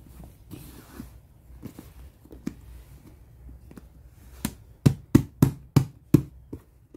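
Cardboard jigsaw puzzle pieces being handled and pressed into their tray on a table: light scattered clicks, then, about four and a half seconds in, a run of about seven sharp taps, roughly three a second, as a hand pats the pieces down.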